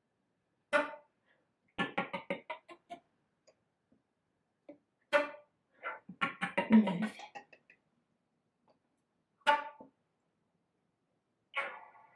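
Concert flute playing short, sharp, percussive attacks separated by silences, in a contemporary piece. There are single accents near the start, about 5 s in, about 9.5 s in and near the end, with two flurries of rapid stuttering notes, one about 2 s in and one around 6–7 s in.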